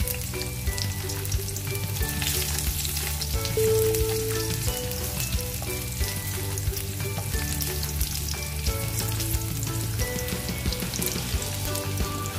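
Garlic cloves frying in hot cooking oil in a nonstick wok: a steady sizzle with crackles, stirred now and then with a spatula.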